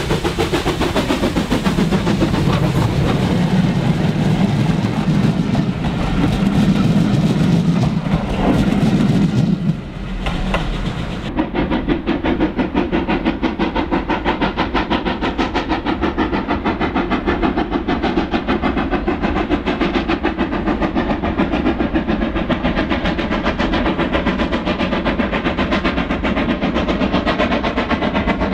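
LMS Ivatt Class 2 tank locomotive 41312 working a freight train under steam, its exhaust beating in a fast, even rhythm over the rolling of the wagons. The engine is close and heavy at first, then from about ten seconds in it is heard further off, the beat carrying on steadily.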